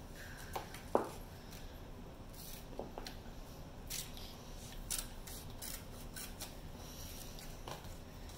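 Scissors cutting paper: faint, scattered snips with some paper rustling.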